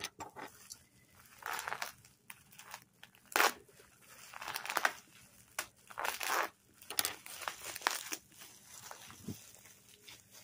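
Plastic bubble wrap crinkling and rustling as hands pull it open, in irregular bursts, the loudest a little over three seconds in.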